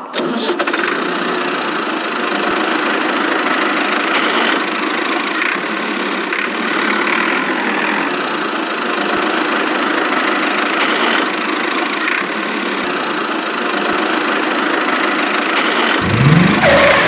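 A small motor running steadily, with a rattling, engine-like sound.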